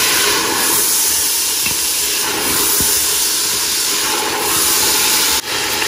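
Mutton pieces frying in hot oil in a pot, a steady loud sizzle. The sizzle drops out briefly about five and a half seconds in.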